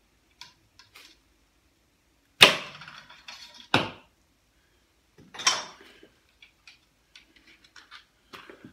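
A jam rod being worked through the barrel of a 3D-printed Nerf bullpup blaster to clear a jammed foam dart. It knocks sharply against the plastic twice, the first knock the loudest and ringing briefly, then scrapes once more, with light handling clicks around it.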